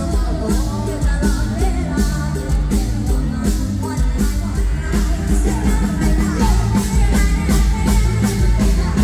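Live Thai mor lam (toei) music: a singer over an amplified band with a steady, driving drum beat.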